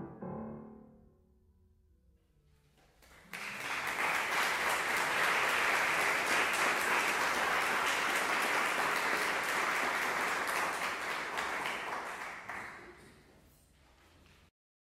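The last notes of a grand piano die away, then after a short hush an audience applauds steadily. The applause fades and cuts off suddenly near the end.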